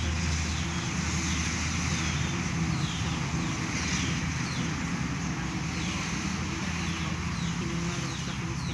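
Steady low rumble, with short falling bird chirps repeating throughout.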